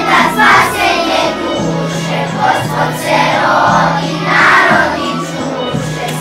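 Children's choir singing to an instrumental accompaniment, whose low notes are held for about a second each and repeat in a steady pattern.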